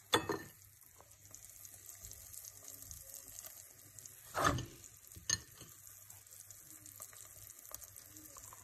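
Oil sizzling faintly in a frying pan around melted braided string cheese and sausage slices, with three short louder bursts (near the start, about four and a half seconds in, and about five seconds in) as sausage pieces are set into the hot oil.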